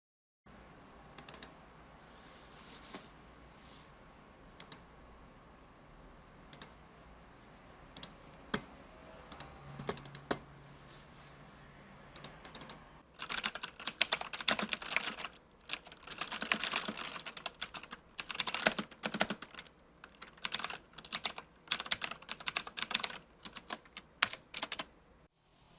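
Typing on a computer keyboard: scattered single keystrokes at first, then fast, continuous typing from about halfway through.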